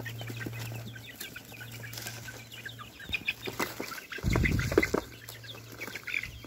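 A flock of young chickens clucking and chirping in many short calls, crowded close around the microphone. About four seconds in, a loud rustling burst lasts under a second.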